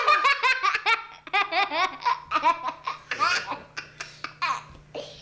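A little girl laughing in a run of high-pitched bursts, loudest in the first second.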